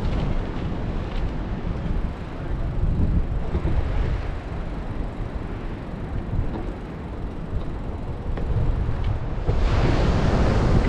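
Wind buffeting the microphone as a low, rumbling noise, easing off in the middle and picking up into a stronger gust near the end.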